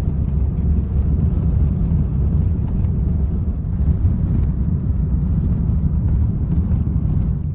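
Car driving along a highway: steady low road and engine rumble.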